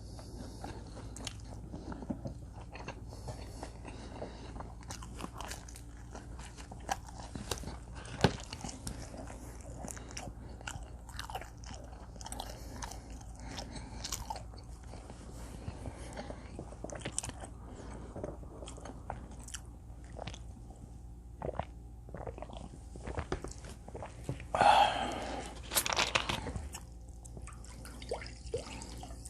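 Close-up chewing and biting of combination pizza, with soft crunches and wet mouth clicks throughout. A louder noisy stretch lasts about two seconds near the end.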